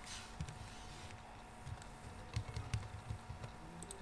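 Typing on a computer keyboard: a run of key clicks, most of them in the second half, with a brief hiss at the start.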